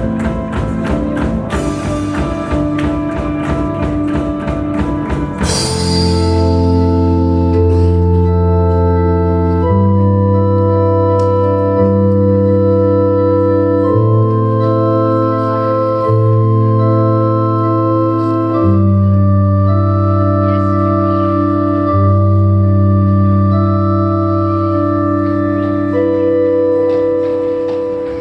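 Music: a busy rhythmic passage with many percussive strikes, then, about five seconds in, long sustained organ-like chords over a low bass, changing every two seconds or so.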